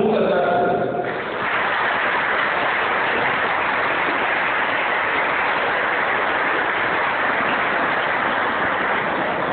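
Group singing ends about a second in, followed by steady applause from a hall audience.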